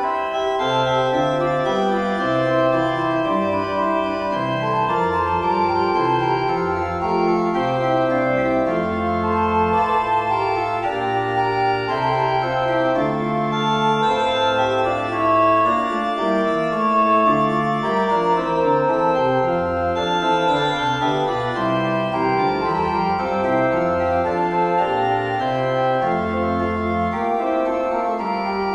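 A four-voice fugue played on organ, several lines moving at once in held notes that stay level rather than dying away.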